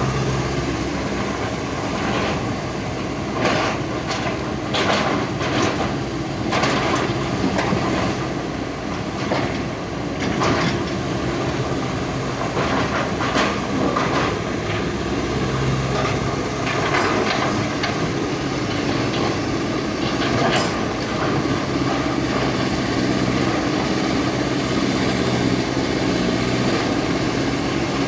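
Excavator's diesel engine running steadily, with a run of sharp knocks and scrapes from about three to twenty seconds in, from the machine at work.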